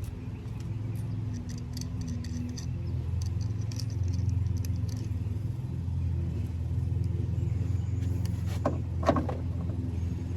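A steady low engine-like hum runs throughout, with light metallic clinks through the first half. Two sharp knocks come close together near the end.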